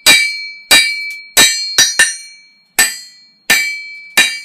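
Blacksmith's hammer striking a bar of O1 tool steel on an anvil, about eight blows at a steady pace with a quick double strike near the middle. Each blow rings out briefly with a clear high tone.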